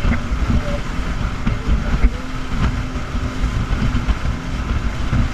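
Speedboat's engines running hard at speed, a heavy steady rumble under the rush of wind and water, with a few short thumps.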